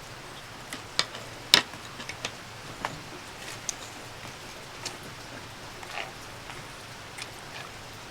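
Steady rain with irregular drops tapping, one sharper tap about a second and a half in.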